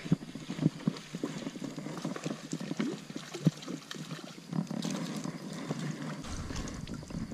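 Spinning reel being cranked to bring in a small hooked trout: a run of irregular clicks and knocks from the reel and rod handling, with a low rumble near the end.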